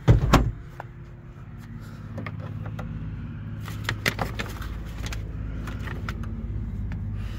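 Handling noises inside a Jeep's cabin: two loud knocks right at the start, then scattered clicks and rustling over a steady low hum.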